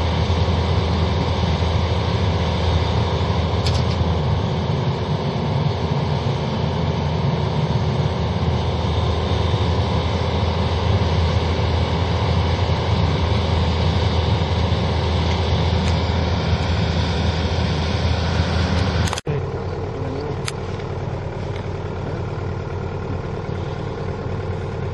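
Compact excavator's diesel engine idling steadily. About nineteen seconds in the sound cuts to a quieter steady engine hum.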